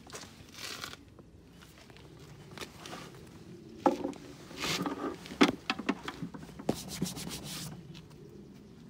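Rubbing and rustling handling noise with scattered sharp clicks and knocks, busiest a little past the middle, as a handheld camera is moved around a leather saddle on a wooden rack.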